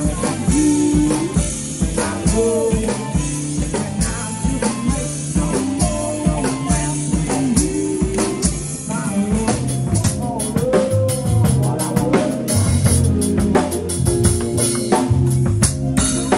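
Live music from a singer-and-drummer duo: a male voice singing over a drum kit that keeps a steady beat.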